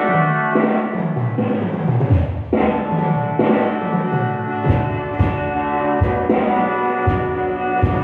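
Live band playing at a sound check. An electric bass walks down in descending runs over sustained chords, and drum hits come in about halfway through.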